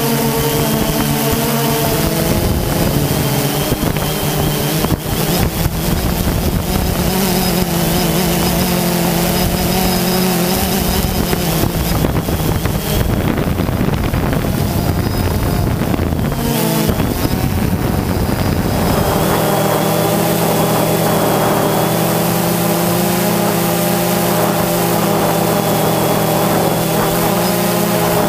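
Quadcopter drone's electric motors and propellers whining steadily as it flies, with several tones that shift in pitch as it manoeuvres. A rush of noise past the middle partly covers the whine.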